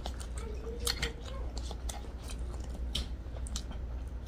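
Close-miked eating sounds: chewing, with scattered sharp clicks of cutlery and chopsticks against plates and a paper noodle cup.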